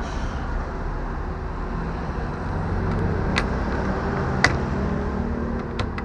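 Washing machine wash motor running after being switched on with the wash timer, a steady hum, with two sharp clicks a little past the middle.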